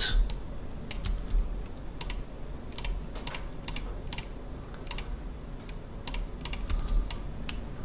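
Computer mouse clicking at an irregular pace, often in quick press-and-release pairs, as mesh faces are picked one by one with shift held.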